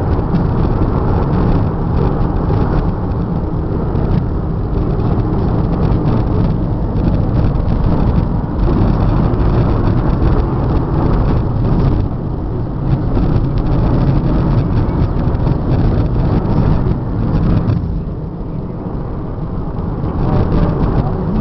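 Steady road and engine noise heard inside the cabin of a car travelling along a highway. It eases for a couple of seconds near the end.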